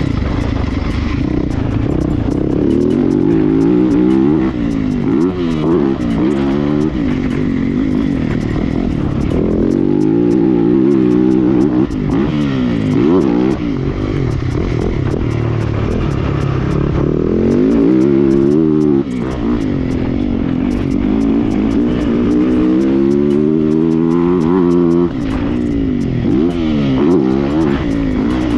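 Yamaha motocross bike's engine heard from on board at speed, revving up hard and dropping back again and again as it is ridden through the gears and into and out of corners.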